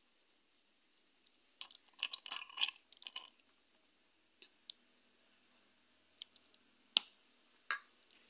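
Metal spoon clinking and scraping against a glass sauce bowl and a steel plate as tomato sauce is spooned out and spread on pizza dough. A cluster of quick clicks comes about two seconds in, then a few single clinks, the sharpest about seven seconds in.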